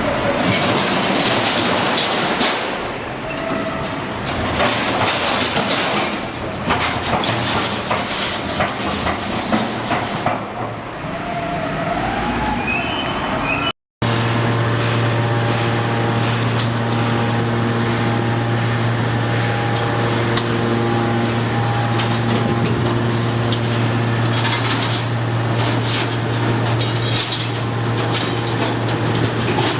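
YDJ-6300 hydraulic metal scrap shear baler at work. For about the first half, scrap metal clatters and knocks over the machine's noise. After an abrupt break there is a steady hum from its hydraulic pump, with a few faint held tones above it.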